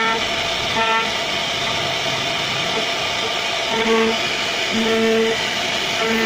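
CNC router spindle cutting a carved pattern into solid wood: a steady, loud cutting noise, with short low tones of one pitch breaking in a few times.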